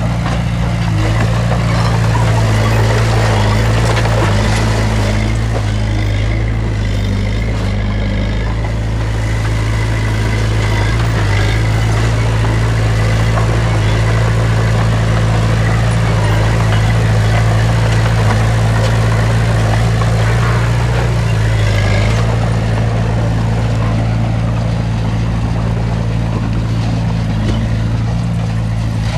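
Heavy diesel engine of earthmoving machinery running steadily, a continuous low engine drone with no pauses.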